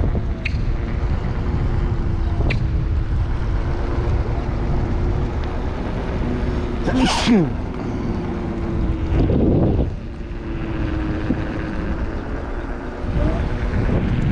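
Electric scooter ride: wind buffeting the microphone over a steady whine from the scooter's motor. About seven seconds in, a brief sharp sound sweeps steeply down in pitch.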